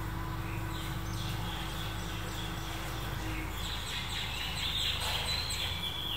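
Small birds chirping in quick, high, repeated notes, busiest in the second half, over a steady low hum.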